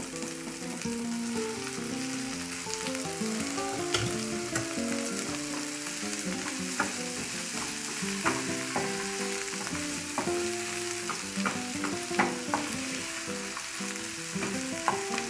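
Shrimp tipped into a hot aluminium frying pan of onions and garlic in olive oil, frying with a steady sizzle. A wooden spoon stirs them, knocking against the pan now and then.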